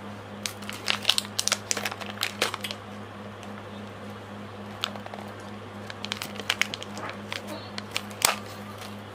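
Foil lid of a plastic snack cup being peeled back by hand, crinkling and crackling in two spells: through the first few seconds and again from about six seconds, with a sharp crack near the end. A steady low hum lies under it.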